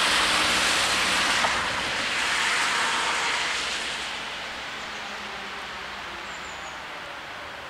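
A car driving past on a wet road: loud tyre hiss on the wet surface that fades away after three or four seconds, leaving a softer steady hiss.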